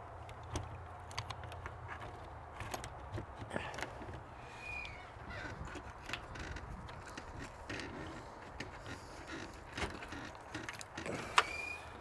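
Faint clicks, taps and rustles of a plastic keypad door handle being positioned against a camper door by hand. The loudest click comes near the end, and two brief high chirps sound along the way.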